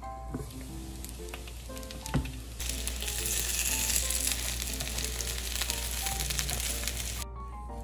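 Daikon gyoza sizzling in oil in a frying pan. The sizzle is moderate at first, turns much louder after a sharp click about a third of the way in, and cuts off abruptly near the end.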